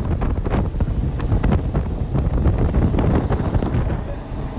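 Heavy wind buffeting on a phone microphone aboard a motorboat running at speed, an uneven rumbling rush with no steady tone.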